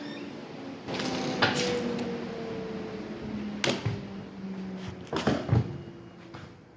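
A woodworking machine's motor winding down after being switched off, its hum sliding lower in pitch and fading, with several sharp knocks and clunks from handling in the shop.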